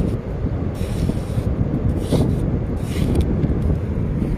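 Metal hand trowel scraping and digging into wet sand, a few short scrapes about a second apart, over a steady rumble of wind on the microphone.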